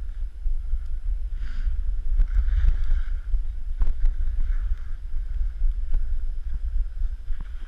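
Wind buffeting the camera's microphone during a downhill slide on snow: a steady, heavy low rumble, with swishes of skis or snowblades scraping over the snow and a few sharp clicks.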